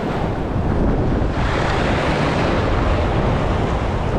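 Wind buffeting the microphone over the steady rush of choppy sea water.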